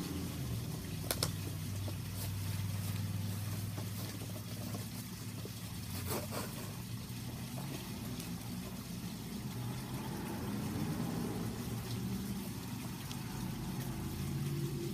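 A low, steady engine drone, typical of a motor vehicle running nearby, shifting slightly in pitch. A couple of sharp clicks, about a second in and again about six seconds in, come from plastic toy packaging being torn open.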